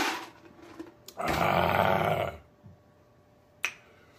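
A man gulps from a glass mug, then lets out a loud, rough vocal sound lasting about a second. A single sharp click comes near the end.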